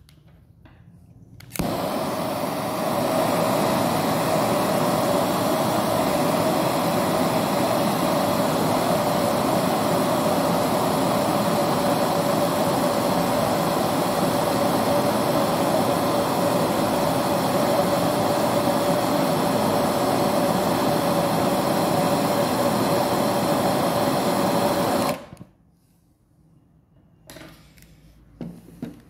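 Hotery HZ-8389 brazing torch burning LPG, heating a copper capillary-to-tube joint. It starts suddenly about a second and a half in and runs as a loud, steady hiss with a constant tone in it. It is shut off abruptly a few seconds before the end.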